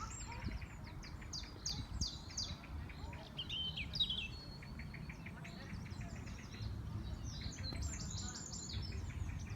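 Small birds chirping and twittering in quick, repeated short notes, over a low steady rumble.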